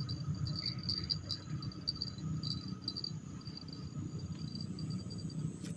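Insects chirping in short, high-pitched pulsed trills that grow fainter after about three seconds, over a steady low rumble, with one sharp click near the end.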